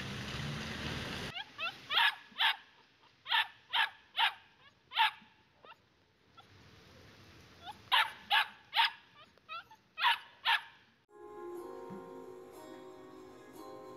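A small white shaggy terrier-type dog barking in two quick bouts of sharp, high barks, about a dozen in all, with a pause of a few seconds between them. A steady rushing noise comes before the first bark, and soft music with a ticking beat comes in near the end.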